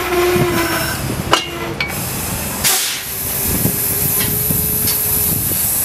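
Pacific Electric Red Car trolley coming to a stop: a steady whine dies away within the first second, a couple of metallic clanks follow, then a sudden rush of air about halfway through, typical of air brakes, with air hissing after.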